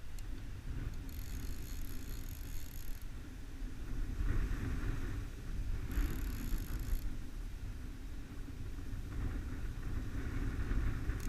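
Click-pawl drag of a Hardy fly reel buzzing twice, about two seconds and then about one second, as a hooked trout strips line off the reel. A steady low rumble of wind on the microphone runs underneath.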